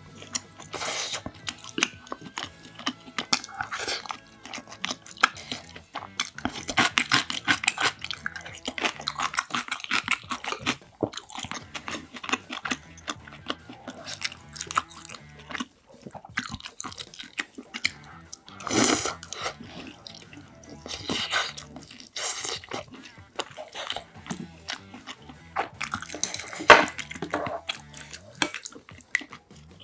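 Close-miked eating sounds: a person chewing food, with irregular wet mouth noises and frequent sharp clicks of chopsticks and a spoon against the dishes.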